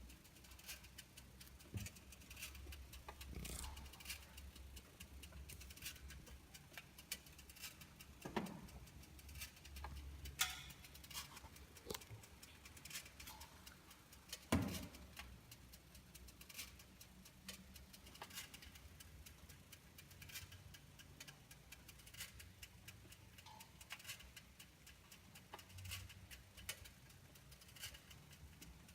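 Irregular faint clicking and rattling from a BMW E46 320i after its engine has been switched off, several ticks a second with a few sharper clicks, over a low hum.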